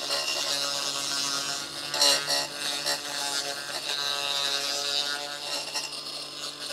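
Einhell GE-LE 18/190 cordless lawn edger running, its motor giving a steady buzz while the blade cuts through turf and soil. There is a louder scraping clatter about two seconds in.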